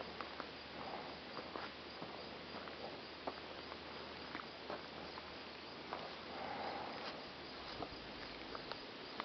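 Faint steady hiss of outdoor background with scattered light clicks and ticks at irregular moments.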